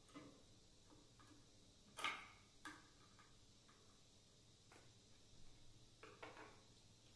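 Small screwdriver and screws clicking and tapping against an acrylic sheet, as an Arduino board is screwed down by hand: a few faint, scattered clicks, the loudest about two seconds in, over near-silent room tone.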